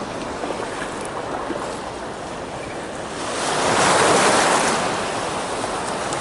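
Waves washing onto the shore in a steady rush, with one louder wave swelling about three seconds in and fading away. Wind buffets the microphone.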